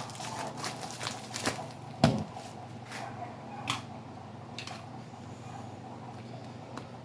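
Handling noises from unboxing a cube puzzle: scattered short clicks and rustles of packaging, with one louder thump about two seconds in.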